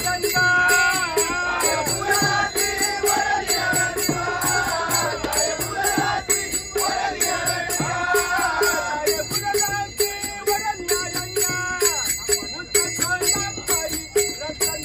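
A Marathi abhang (devotional song) sung in a strong voice, accompanied by small hand cymbals clashing on a steady beat. The singing is strongest for the first nine seconds or so and softer after that, while the cymbal beat keeps going.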